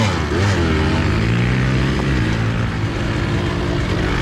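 Enduro dirt bike engine ridden hard off-road, revving up and down with the throttle in the first second, then settling into a steadier, lower run.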